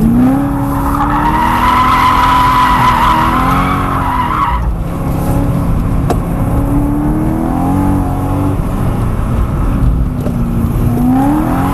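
2011 BMW E90 M3's V8 engine, heard from inside the cabin, revving up and down with the throttle while the tyres squeal in a long steady note as the car slides in an oversteer drill. The squeal cuts off about four and a half seconds in, and the engine carries on rising and falling.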